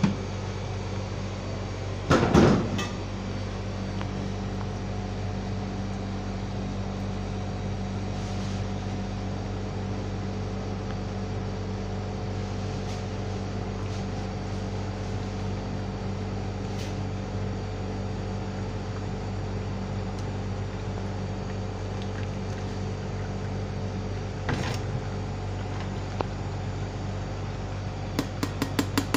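A steady electric hum, like a motor or fan running, throughout. A loud clatter comes about two seconds in and a smaller knock later, and near the end a rapid tapping starts, about four taps a second.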